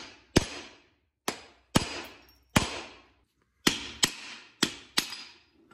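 Hammer blows on the end of a worn UTV transmission output shaft, driving it out of a bearing held in a bearing separator: about eight sharp metallic strikes at uneven intervals, each ringing briefly.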